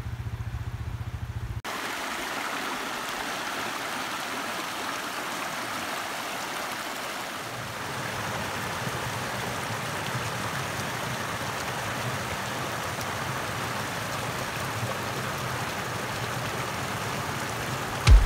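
Small mountain stream splashing and gurgling as it cascades over mossy rocks: a steady rush of water that starts abruptly about two seconds in, after a brief low rumble.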